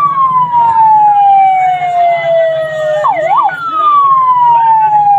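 A loud electronic siren-like wail that slides slowly down in pitch, jumps back up with a quick warble about three seconds in, then slides down again, over a steady low hum and street noise.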